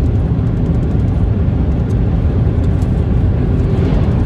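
Steady low rumble of engine and road noise inside the cab of a moving vehicle.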